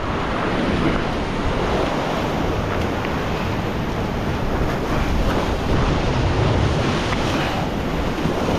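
Ocean surf washing and churning against a rock ledge, steady throughout, with wind buffeting the microphone.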